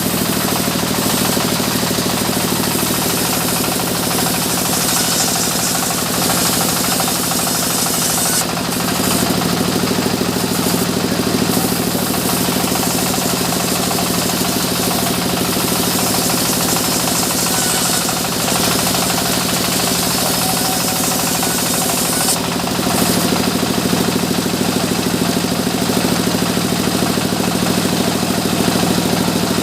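Sawmill machinery running continuously: a steady engine drone with a high hiss over it, changing briefly about 8 and 22 seconds in.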